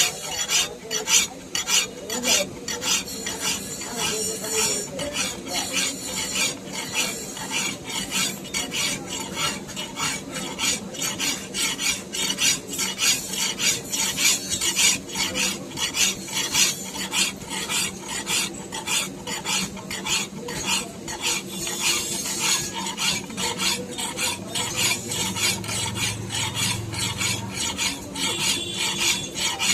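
A knife blade being sharpened by hand: steady, rhythmic metal scraping strokes, about two a second.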